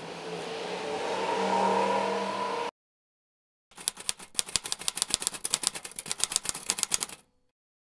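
Typewriter key clicks, a quick run of about eight strikes a second lasting some three and a half seconds, set to text typing onto the screen. Before it, a swelling rush of noise with a steady hum cuts off suddenly, followed by a second of silence.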